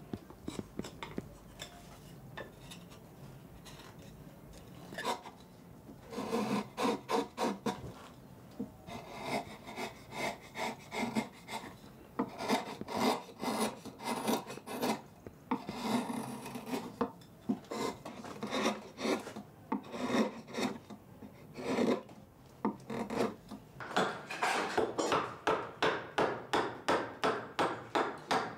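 Wood being filed or rasped by hand in runs of repeated scraping strokes, starting about five seconds in and coming about three a second near the end.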